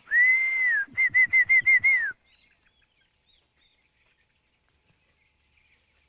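A person whistles to quieten a house of broiler chickens: one long whistle, then a rapid pulsing whistle of about six sharp beats. From about two seconds in, only faint peeping of the broilers remains; the flock has gone quiet, so breathing can be listened to for signs of respiratory distress.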